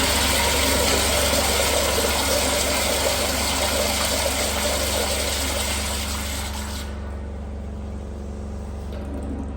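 Kohler Highcliff Ultra commercial toilet flushing: a loud rush of water that tails off and cuts out about seven seconds in as the flush valve shuts. A steady low hum runs underneath throughout.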